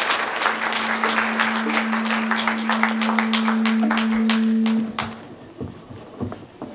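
Audience applauding. The applause dies away about five seconds in. A single steady low tone is held beneath it for most of that time.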